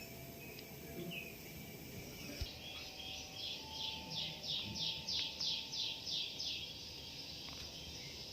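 A bird singing: a run of about a dozen quick, high descending notes, about three a second, swelling and then stopping after some four seconds, over a faint steady background hum.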